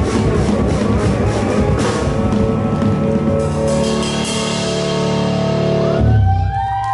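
Live band music with drum kit: steady drum strokes at first, then a held chord, with the band stopping on a final hit about six seconds in.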